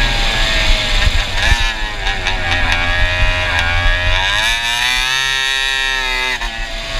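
Go-kart engine fitted with a stinger exhaust, heard onboard at speed with wind on the microphone. The revs fall off going into a corner and climb again on the way out, then dip and swing up and down through another bend before rising near the end.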